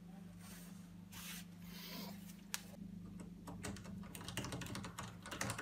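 Faint scraping and rustling of a dishwasher's metal door being set onto its hinges, then a run of small irregular clicks as a screwdriver fastens a door-hinge screw, over a steady low hum.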